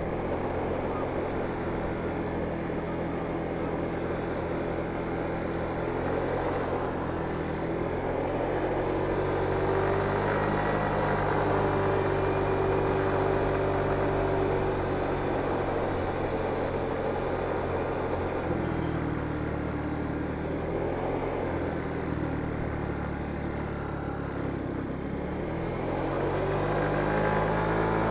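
Motor scooter engine running under way, its note shifting up and down several times with speed and climbing near the end, over a steady rush of wind and road noise.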